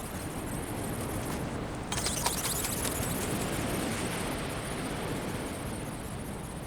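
Strong wind buffeting the microphone, a steady rumbling noise that grows brighter and a little louder about two seconds in, with a short sharp tap just after.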